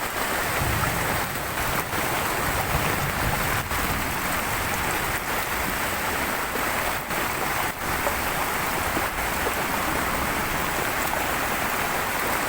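Steady rushing water of a waterfall running in high flood after heavy rain.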